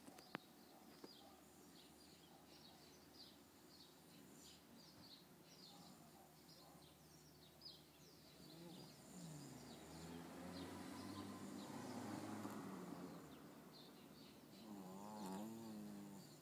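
A sleeping baby snoring softly, in two long, wavering snores: one from about halfway through and a shorter one near the end. Birds chirp steadily in the background.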